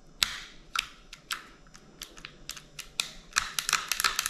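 Small sharp clicks from a CZ P09 pistol frame's parts as the freshly reinstalled manual safety is pushed home and worked by hand: a few scattered clicks at first, then a quicker run of them near the end.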